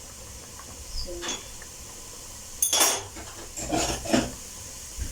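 Kitchen utensils clinking and clattering against dishes and a pan in a few separate knocks, the loudest just under three seconds in.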